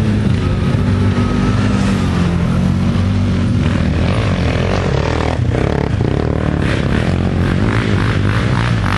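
Quad bike engines running and revving as the ATVs climb a steep dirt track one after another. From about seven seconds in the sound pulses a few times a second as a quad digs in and throws up dirt.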